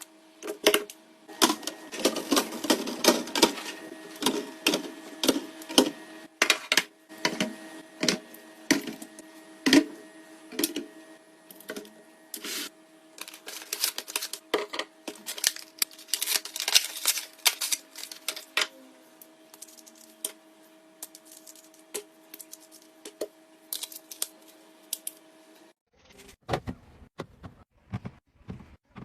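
Dense, irregular clicking and tapping of food packages and containers being handled and set in place, over a steady hum. The hum stops abruptly about 26 seconds in, and lighter tapping goes on.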